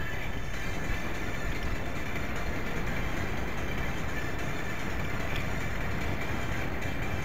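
Steady wind rush and rolling road rumble on a bicycle-mounted action camera's microphone while riding along a paved path, heaviest in the deep low end.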